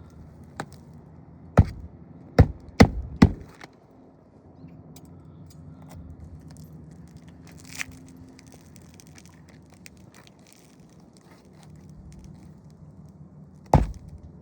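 Hammer blows on a roof during an asphalt shingle repair: four sharp knocks in quick succession between about one and a half and three and a half seconds in, then another just before the end, over a faint, steady low hum.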